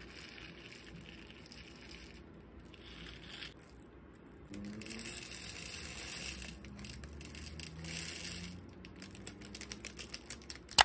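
A small plastic bag crinkling as plastic beads are poured from it into a compartment of a clear plastic bead organizer. Near the end come many small rattling clicks of the beads, then one sharp click.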